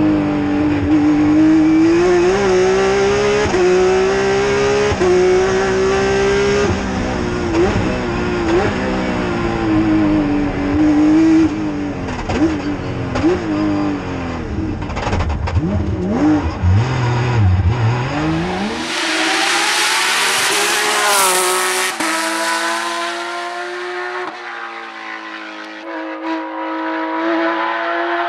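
Porsche 997 GT+ rally car's flat-six heard from inside the cockpit at full attack, the engine note climbing and dropping sharply again and again through upshifts and downshifts, with low dips under braking around fifteen to eighteen seconds in. After about nineteen seconds the sound switches to the car heard from the roadside at a distance, a short burst of rushing noise first, then the engine pulling up through the gears.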